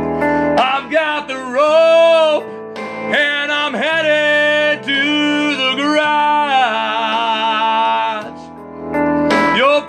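A man sings a heavy rock-blues song in a rough, gritty voice over instrumental backing with guitar, his phrases broken by two short pauses.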